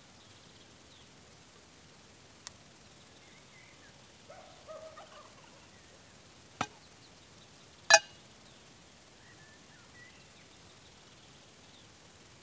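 Three separate sharp knocks of hand logging tools against wood and metal, the last and loudest about eight seconds in with a brief metallic ring. A short pitched sound comes about five seconds in, and faint birds chirp.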